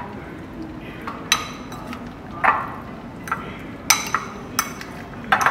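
A metal spoon clinking against a glass bowl while mixing chicken pieces in a thick marinade: about six irregular knocks, each with a brief glassy ring.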